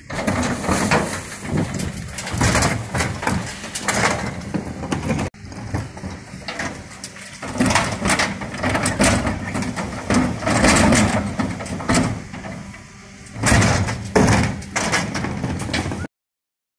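A refuse truck's rear bin lifter, a Geesinknorba Combi-split on a GPM IV body, tips and shakes a wheelie bin empty with repeated clanking and banging. The truck's engine runs steadily underneath. The sound breaks off abruptly near the end.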